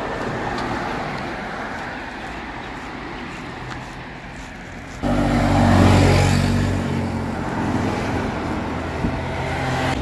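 Road traffic noise. About five seconds in, a motor vehicle's engine comes in suddenly and loudly as it passes close by, loudest a second later and then easing off.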